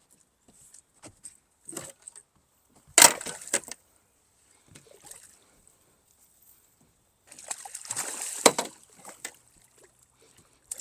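A walleye being landed in a net beside a boat: a sharp knock against the boat about three seconds in, the loudest sound. Near the end, a couple of seconds of splashing water with clatter as the fish thrashes in the net.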